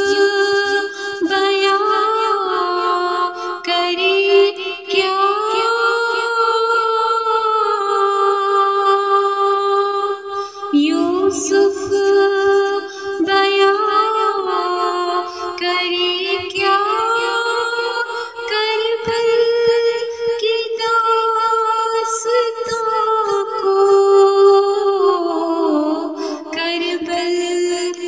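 A high voice singing a devotional manqabat melody in long held notes that glide from pitch to pitch, in phrases of several seconds, with no clear words.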